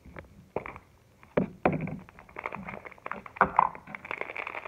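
Hard plastic donut-shaped toy capsule being twisted and snapped open, with a few sharp clicks and knocks, then a foil wrapper crinkling from about halfway on.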